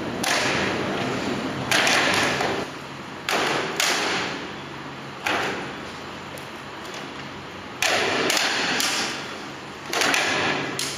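Cedar timber shear wall with through-tenon (nuki) joints giving sharp cracks and pops under racking load at about 11 kN. There are about seven of them, one every second or two, each ringing out briefly in the large hall.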